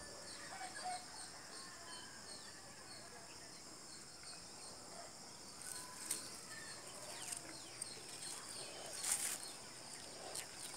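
Faint outdoor ambience: steady high-pitched insect chirring with an evenly repeating chirp, a few scattered bird-like calls, and a few soft clicks, the loudest about nine seconds in.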